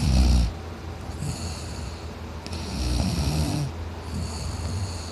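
A man snoring loudly in deep sleep: a harsh, rattling snore at the start and another about three seconds in, with hissing breaths between them.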